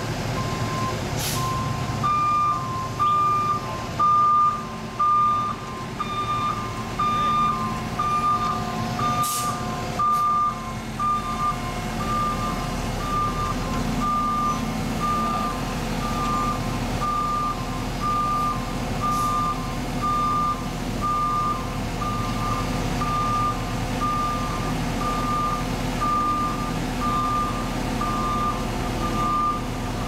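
Backup alarms on heavy paving trucks beeping, two alarms at slightly different pitches, each about once a second and overlapping, over the low running of diesel engines. A sharp knock about nine seconds in.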